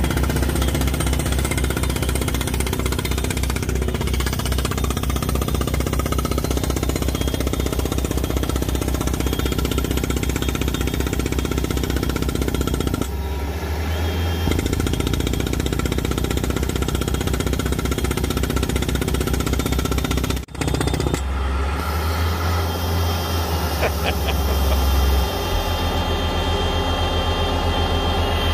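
Mast-mounted rock drill on a compact track loader hammering into rocky ground, a fast, steady pounding with an engine running under it. It breaks off for an instant about twenty seconds in.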